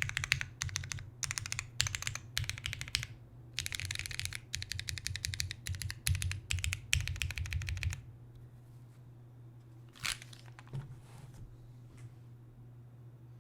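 Custom mechanical keyboard with an aluminium full plate, lubed West German vintage Cherry MX Black linear switches and GMK keycaps, hammered in rapid bursts of repeated key presses (key spam). The spam stops about eight seconds in, and a few single key clicks follow.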